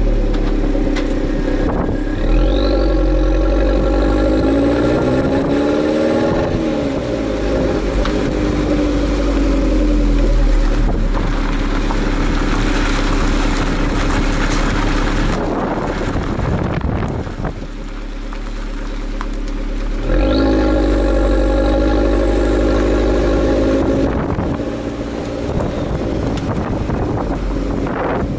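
2014 Fiat 500L's 1.4-litre turbocharged four-cylinder, heard through its stock muffled exhaust right at the tailpipe. The engine note climbs through the revs twice, about two seconds in and again about twenty seconds in, each time with a high whine rising alongside it. Between the two pulls the engine note gives way to a steady rush of wind and road noise.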